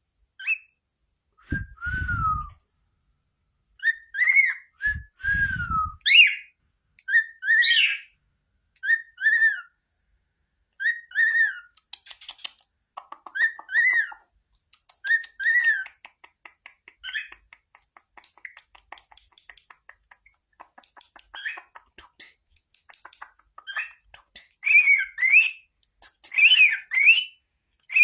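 Cockatiel whistling a string of short whistle notes that bend up and down, with faint clicky chatter between them. Near the end the whistles come louder and quicker.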